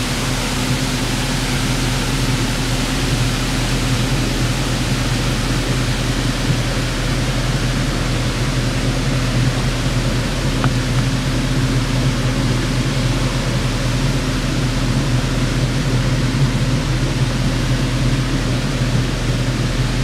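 Waterfall rushing steadily where it falls into the lake, with a low steady hum underneath.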